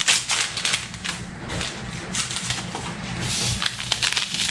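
Kitchen scissors snipping open a small paper packet, with the packet rustling and crinkling in the hands in short irregular bursts.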